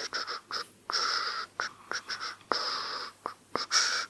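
Hair being handled close to the microphone: about five scratchy rubbing strokes through the hair, each with a light click at its start.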